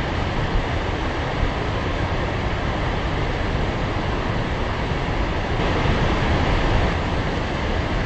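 Large waterfall pouring into a gorge: a steady, dense rush of falling water with a deep rumble underneath, a little louder for a moment about six seconds in.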